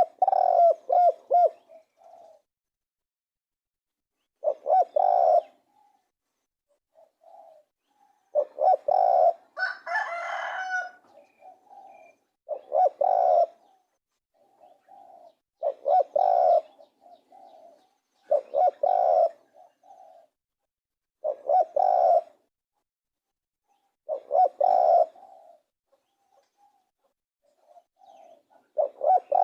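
Spotted dove cooing: short repeated phrases of low coos, one about every two and a half to three seconds. A brief higher chirping overlaps one phrase about ten seconds in.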